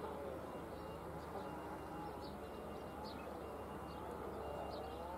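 A siren wailing, its pitch rising and falling about once a second and growing louder near the end, over a steady outdoor hiss with a few faint bird chirps.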